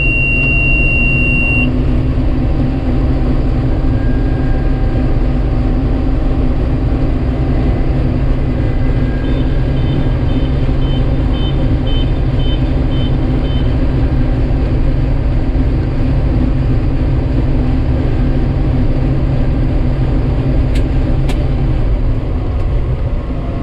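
Combine harvester running steadily under a continuous low hum. A steady beep sounds at the start, and about nine seconds in a string of short beeps, about two a second, sounds for a few seconds.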